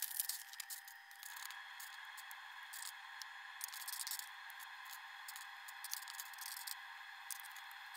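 Faint clicking and rattling of loose LEGO plastic pieces being sorted and picked through by hand, over a steady faint hiss.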